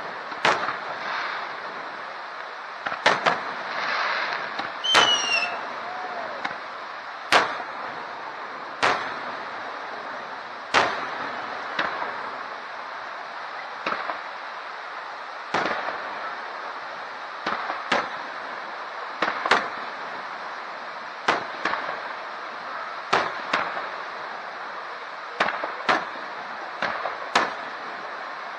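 Aerial fireworks shells bursting in a steady string of sharp bangs, one every second or two and some in close pairs, each trailing a short echo.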